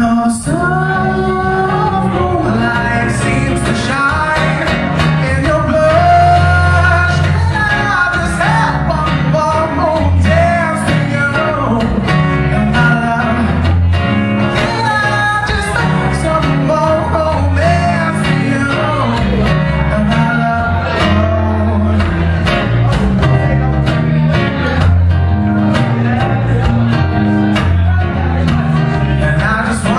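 Live band playing a rock-and-roll song: a man singing over acoustic guitar, electric bass and drums, with a strong steady bass.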